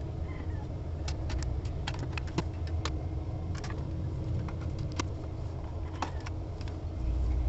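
Scattered small plastic clicks and taps as a clear visor is handled and pressed onto the side base plates of an AGV Pista GP RR helmet, over a steady low hum that grows louder near the end.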